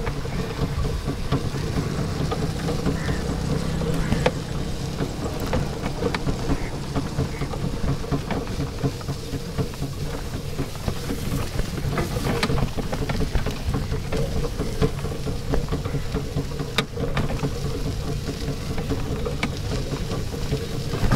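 Cycle rickshaw rolling along a rough dirt track: a steady rattle of the frame and tyres on the ground, with scattered clicks and knocks as it jolts.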